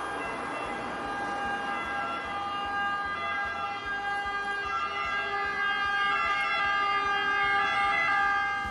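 Ambulance siren wailing over road noise, growing steadily louder as the ambulance approaches.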